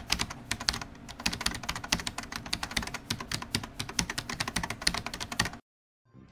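A rapid run of keyboard typing clicks, a typing sound effect, stopping suddenly about five and a half seconds in. Music starts just before the end.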